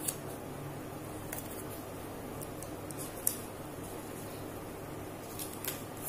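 Light rustling and a few short clicks of paper cut-outs being picked up and handled, the sharpest click about three seconds in, over a steady low hum.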